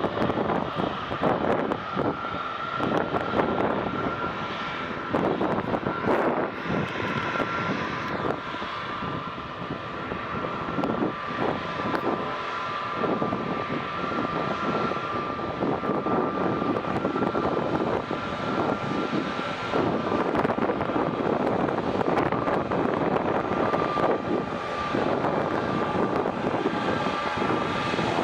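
A fixed-wing airplane's engines running steadily: a whine held on two or three pitches over a broad rushing noise.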